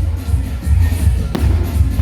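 Loud music with a heavy, pulsing bass beat, and a single sharp bang about two-thirds of the way through.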